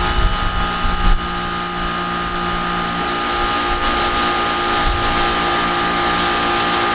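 TEANDE electric pressure washer running steadily with a high whine from its motor and pump, over the hiss of water jetting from the fan nozzle.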